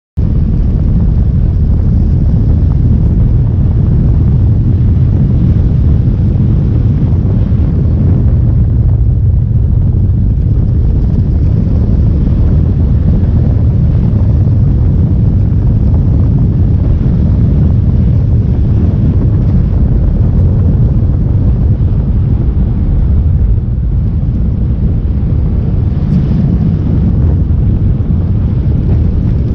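Steady roar of wind buffeting the microphone over the drone of a motorcycle riding along a road.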